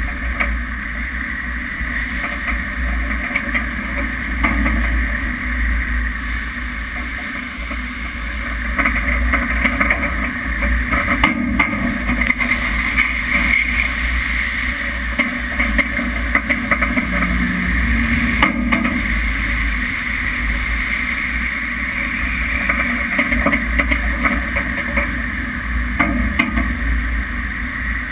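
Rough sea rushing and breaking around a ship's bow, with a constant low wind rumble on the microphone. A few sharp hits stand out.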